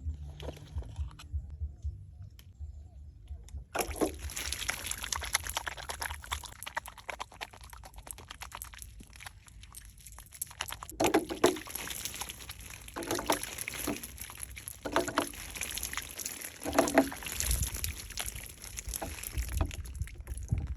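Water sloshing and pouring, starting about four seconds in, with several louder splashes.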